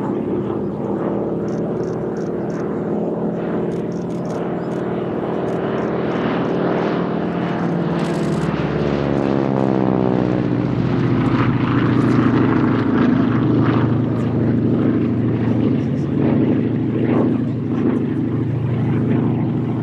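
North American T-6/Harvard trainer's nine-cylinder Pratt & Whitney R-1340 Wasp radial engine and propeller running steadily in a display pass, the pitch dropping as the aircraft sweeps past about nine seconds in and the sound growing loudest just after.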